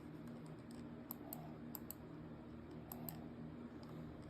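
A handful of faint, irregular clicks over a low steady hum.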